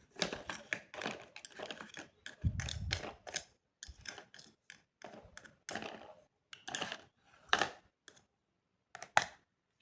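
Small hard pieces being handled: irregular light clicks, taps and rustles, with one dull low bump about two and a half seconds in.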